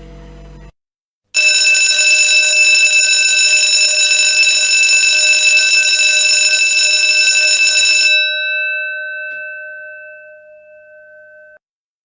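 School bell ringing loudly and steadily for about seven seconds, then the striking stops and the bell rings out for a few seconds.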